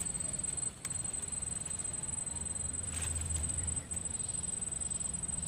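Quiet outdoor ambience: a steady high-pitched insect drone over a low rumble, with a faint click about a second in and another about three seconds in.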